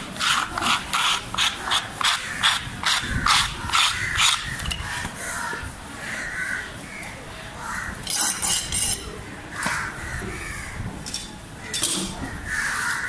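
A fast, even run of knife strokes against a wooden chopping block as a shortfin scad is cut, about three a second for the first four seconds. Scattered knocks and a brief scrape follow. Crows caw now and then.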